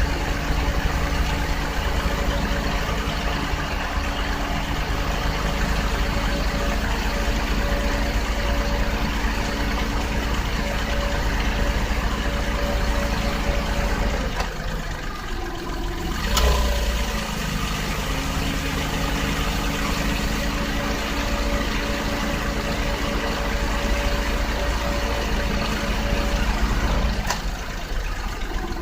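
Nissan Otti (H91W) 660 cc three-cylinder engine idling steadily with a thin steady whine over the engine note, heard from the engine bay as the abnormal noise under investigation. The sound dips briefly twice, about halfway through and near the end, and each dip ends in a short knock.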